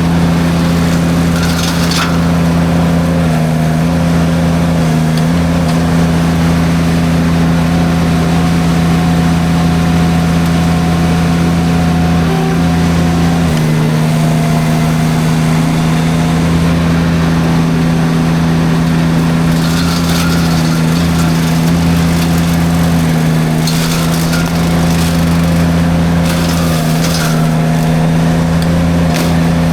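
Derette V1000 mini skid steer running steadily at high speed, driving its drum forestry mulcher. Short crackling bursts come as the drum shreds brush, once near the start and several times in the last third.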